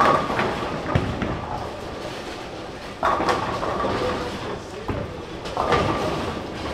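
Bowling pins crashing and clattering as a ball strikes the rack, followed by further pin crashes from nearby lanes about three seconds in and near the end, each ringing out over a second or two above the low rumble of balls rolling down the lanes.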